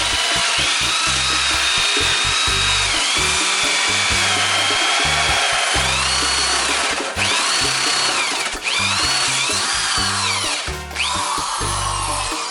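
Power drill running a hole saw through a door to enlarge a deadbolt hole; the motor's whine rises and falls in pitch as the saw bites, dipping briefly three times in the second half.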